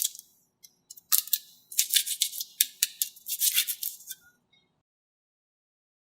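Something rattling: a quick, uneven run of sharp clicks for about three seconds, which stops abruptly and is followed by silence.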